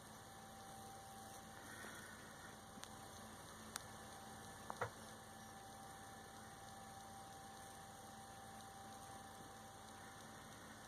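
Near silence: a steady low hum with faint hiss, broken by a few small clicks about three to five seconds in.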